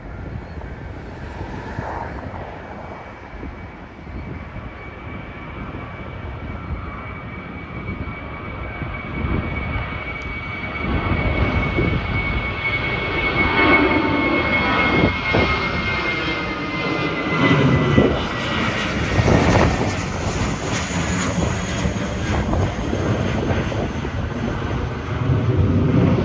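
Jet airliner's engines at takeoff power as it runs down the runway and passes: a rumble that grows louder over the first half, with a steady high whine that drops a little in pitch as it goes by.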